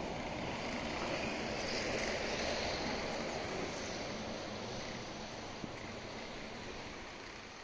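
Steady rushing noise of riding a bicycle: wind over the microphone mixed with tyres rolling on stone paving. It swells a second or two in and fades slowly toward the end, with one small click a little past halfway.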